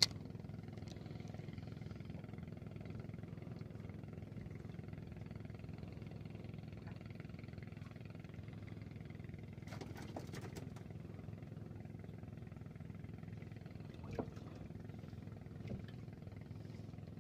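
Low, steady drone of a boat engine running, with a couple of faint knocks partway through.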